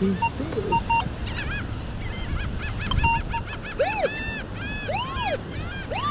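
Short, steady metal-detector beeps near the same pitch, mixed with gulls calling: a quick run of chirps and several rising-and-falling cries.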